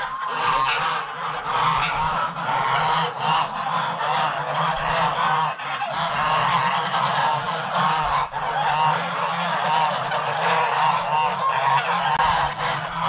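A flock of white domestic geese honking continuously, many overlapping calls at once, with a steady low hum underneath.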